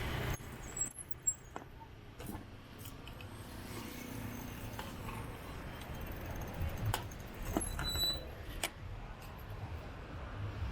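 Quiet street traffic ambience: a low, steady rumble of distant vehicles with scattered short clicks and rattles.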